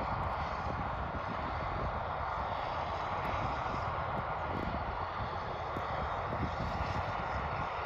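Airbus H135 rescue helicopter running on the ground, its turbines and turning rotor giving a steady rushing whine, with an uneven low rumble of buffeting underneath.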